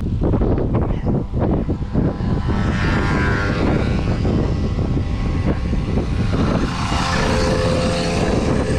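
Motor vehicle engine running close by, a loud steady drone over a heavy low rumble that is gusty in the first couple of seconds and evens out, with the engine's tone clearest near the end.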